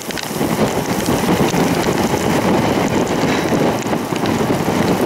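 Strong wind and rain rushing over the microphone, a dense, loud, steady noise that comes up suddenly at the start.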